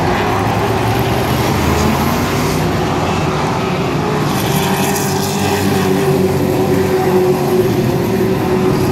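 A field of short-track race trucks running at speed around a paved oval, their engines blending into a loud, steady drone.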